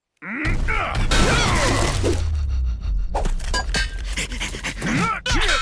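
Cartoon fight sound effects: a crash and noisy impacts over a low rumble, mixed with a creature's growls and short grunting shouts.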